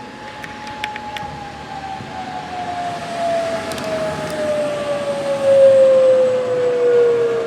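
Outdoor tornado warning siren wailing, its tone holding steady briefly and then sliding steadily down in pitch as it winds down, swelling louder near the end. A few faint clicks about a second in.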